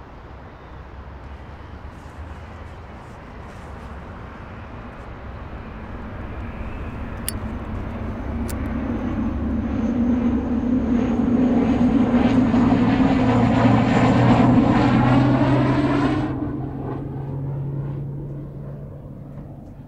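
A low droning hum with a thin whine on top swells steadily louder for about ten seconds, then cuts off abruptly near the end. Partway through come two sharp clicks a little over a second apart, a flip-top lighter being opened and struck.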